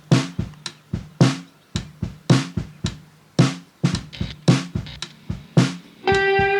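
Background music: a sparse drum beat of evenly spaced hits, about two a second. A held pitched note comes in near the end and bends upward.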